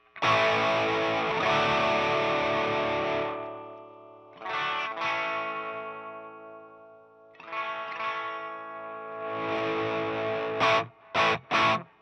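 Electric guitar played through a homemade Tube Screamer-style overdrive pedal into a Marshall Vintage Modern valve amp. Several overdriven chords each ring out and fade, then short, choppy chords come near the end.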